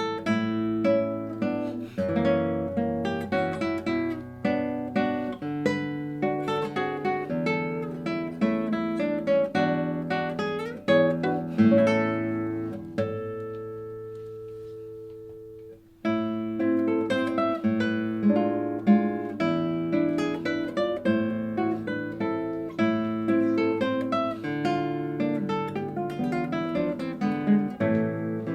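Solo classical guitar playing plucked melody and chords. About halfway through, one held note is left to ring and fade for a few seconds before the playing picks up again.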